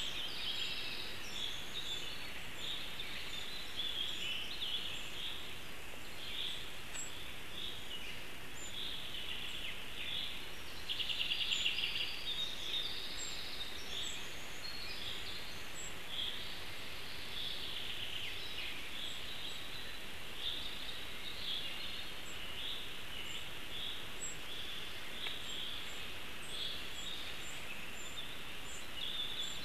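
Wild songbirds singing in the forest canopy, a steady run of short chirping phrases, one a little louder about eleven seconds in, over a constant background hiss.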